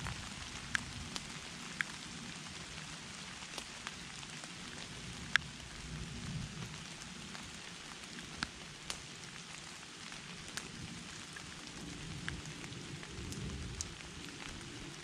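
Small wood fire crackling: a steady hiss with scattered sharp pops, the loudest about five seconds in.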